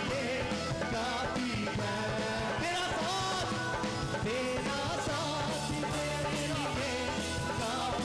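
Live Urdu/Hindi worship song: male voices singing over a steadily beaten dhol drum and band backing.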